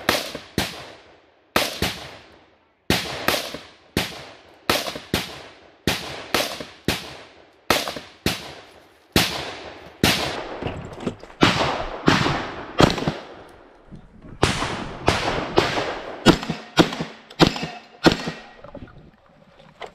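A long string of gunshots, roughly two a second with a few short breaks, each a sharp crack with a brief echo. A rifle is fired from prone first, and shotgun blasts come near the end after a gun change in a multi-gun stage.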